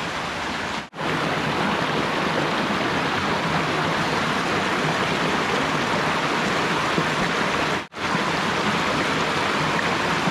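Rushing water from a forest stream or waterfall, a steady full hiss that cuts out for an instant twice, about a second in and near the end.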